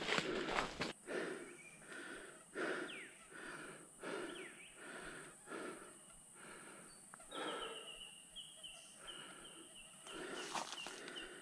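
A person breathing hard and heavily, one deep breath about every second and a half, from the effort of pushing a scooter over rough ground. From about seven seconds in, a bird calls a run of short high notes that step slightly down in pitch. A loud rush of noise stops about a second in.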